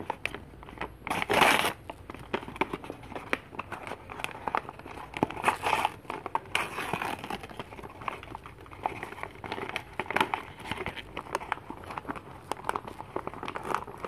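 Paper bag being torn open and crumpled by hand: a dense run of small crinkles and crackles, with a louder rush of tearing paper about a second and a half in and more rips around the middle.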